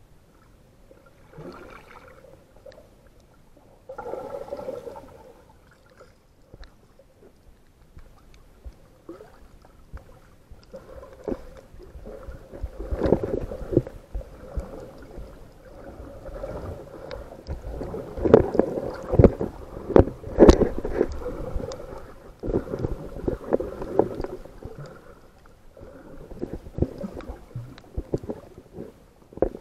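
Water sloshing and gurgling, with irregular knocks and clicks. It is busiest and loudest in the middle of the stretch.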